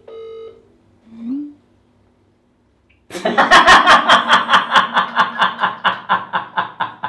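A phone call's ringing tone sounds briefly, then after a few seconds of near silence a person bursts into long, loud laughter in quick, even pulses, about four or five a second.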